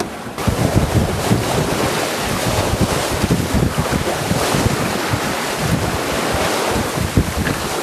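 Strong wind buffeting the microphone over the rush and splash of water along a sailboat's hull, picking up sharply about half a second in.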